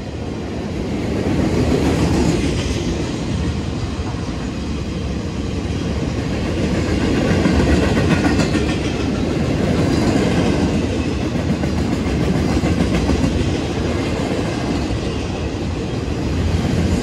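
Freight cars of a welded-rail train, old steel gondolas fitted with rail racks, rolling past close by: a steady rumble of steel wheels on the rails with scattered clacks and clanks.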